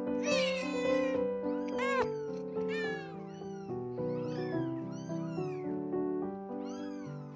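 Two-week-old kittens mewing again and again in high, thin cries, over background piano music.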